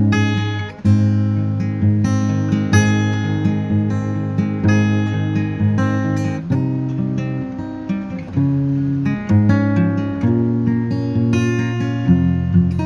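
Background music: strummed acoustic guitar, with a chord struck about every half second.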